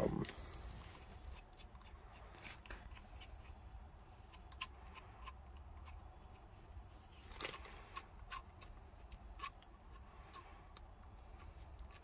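Faint handling sounds: scattered small clicks and a light rustle as a metal shift knob and its threaded adapters are handled over a plastic zip bag.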